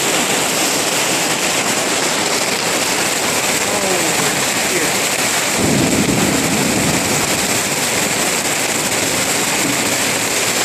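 Hailstorm: hail and heavy rain pouring down onto pavement, a loud, steady, dense hiss. Just past the middle, a louder low rush swells for about a second and a half.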